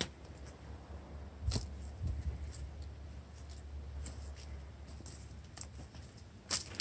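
Footsteps on a dirt forest trail covered in dry leaves and twigs, with light crisp crunches about once a second over a low steady rumble.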